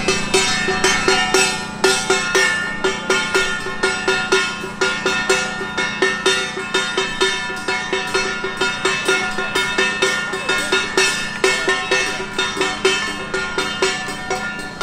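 Small hand-held brass gong struck with a stick in a fast, steady beat, about three ringing metallic strokes a second.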